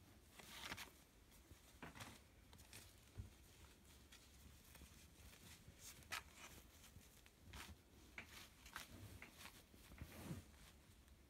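Faint rustling of polyester football shirt and shorts being handled, in short scattered rustles with a few soft knocks.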